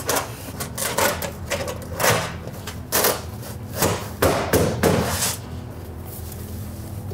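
Thin stamped aluminum shingle panels knocking and clicking as they are handled and fitted into place. The light knocks come about once a second, with a quick cluster near five seconds in, then the sound settles.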